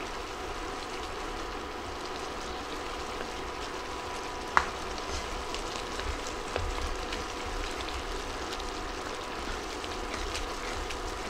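Chicken pot pie filling sizzling and bubbling in an enameled cast-iron Dutch oven as flour is stirred into it with a wooden spatula, with small scraping clicks from the stirring. A single sharp knock about four and a half seconds in.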